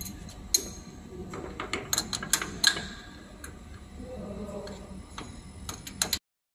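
Irregular sharp metallic clicks and clinks, about a dozen, bunched in the first three seconds and again just before the end, over a low steady background; the sound cuts off suddenly about six seconds in.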